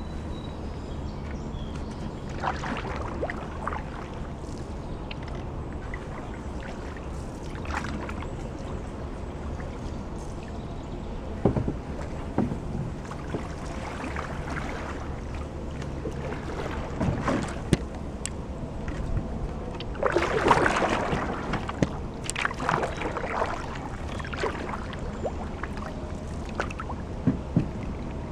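Canoe paddle strokes in calm floodwater at irregular intervals, with splashes, drips and a few sharp knocks, over a steady low rumble. The longest and loudest splashing comes about twenty seconds in.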